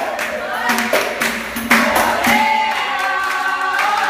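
Capoeira roda music: a group singing together over a steady beat of handclaps and hand percussion.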